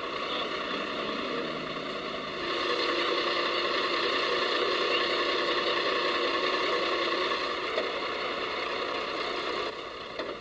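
A truck's engine running as the truck is driven slowly onto a flatbed trailer. It grows louder about two and a half seconds in, holds steady, then eases off near the end.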